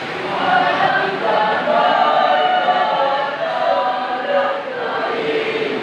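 Church choir singing in several voices, holding long sustained notes.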